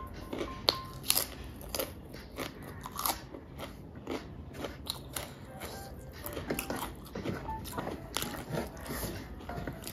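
Close-miked crunching and chewing of a crisp fried chip, with irregular crackles spaced through the mouthful.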